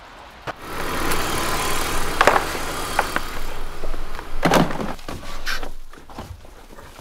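Rustling and rubbing against the car's interior carpet and trim, with a couple of sharp knocks, over the low steady hum of the idling engine. The rustling starts about a second in and dies away near the end.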